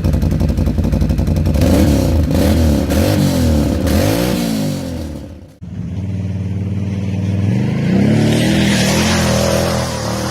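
Can-Am Outlander 800 ATV's V-twin engine being revved through its exhaust in a series of quick blips, rising and falling in pitch. About five and a half seconds in the sound breaks off abruptly, then the engine runs again, its revs climbing a couple of seconds later.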